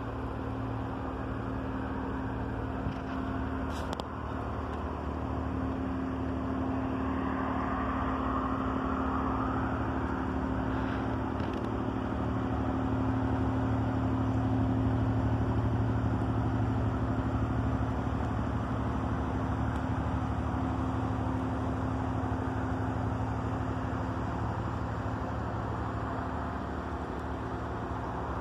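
Ship's engine droning steadily as the vessel passes close by, with a low hum that swells to its loudest midway and then eases slightly. A brief click about four seconds in.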